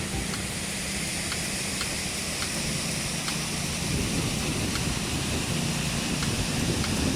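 Rushing water: a steady, even wash of noise from flowing or falling water.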